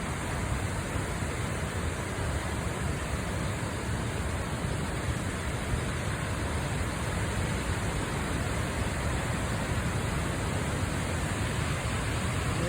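Water pouring steadily over a three-tiered waterfall: a constant, even rush, deepest in the low end.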